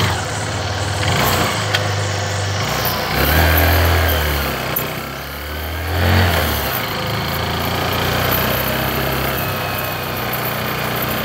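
Motorcycle engine running while riding, under a steady rushing noise. The engine's low hum swells louder twice, about three seconds in and again about six seconds in.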